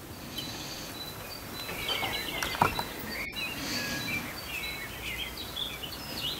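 Small birds chirping in quick, varied twitters, thickest in the second half, with one sharp knock about two and a half seconds in.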